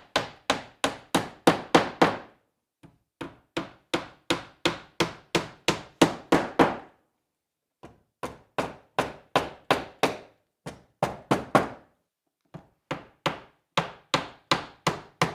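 Hammer striking a nail into wood in quick, even blows, about three or four a second. The blows come in runs broken by three short pauses.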